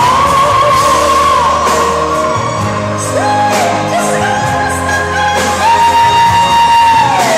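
Male pop singer singing long, high held notes over a pop backing track, each note sliding down as it ends; the last and loudest note is held for about a second and a half near the end.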